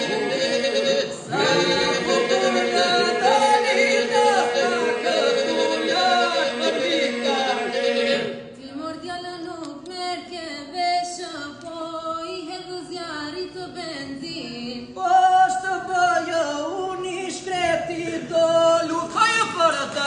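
Albanian polyphonic folk singing by a group of men and a woman, unaccompanied: the lead voices move over a held drone. About eight seconds in, the drone drops away and the voices continue in shorter phrases.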